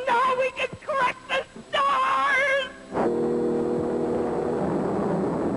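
A high voice singing short phrases with wide vibrato, then about three seconds in a held orchestral chord comes in under a broad hiss that slowly fades.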